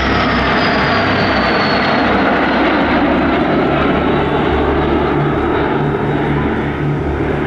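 Fouga Magister jet trainers flying past in formation, their twin Turbomeca Marboré turbojets making a loud steady jet roar. A high whine falls in pitch over the first two seconds as they pass.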